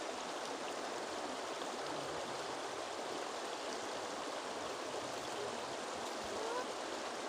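Shallow river running over a stony bed: a steady rushing of water.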